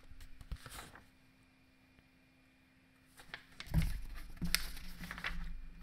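Soft rustles and taps of a thin picture book being handled and its pages turned close to a microphone, with a quiet gap in the middle and a few low bumps in the second half.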